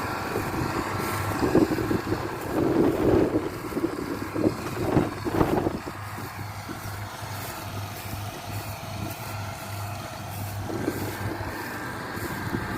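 Rice combine harvester running with a steady engine drone, with louder, rougher noise in the first half.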